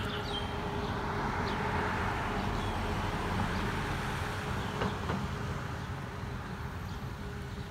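Road traffic: a passing vehicle swells and fades over a steady background rumble.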